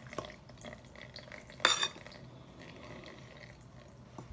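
A utensil stirring thin pancake batter in a glass mixing bowl, with light repeated clicks against the glass and one louder ringing clink about a second and a half in.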